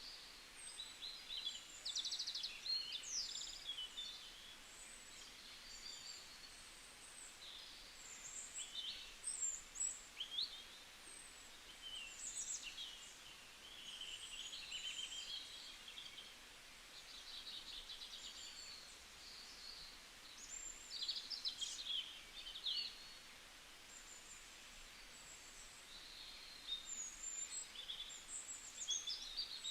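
Several songbirds singing and calling in a forest dawn chorus: overlapping chirps, quick trills and short whistled notes, coming in clusters every few seconds over a faint steady hiss.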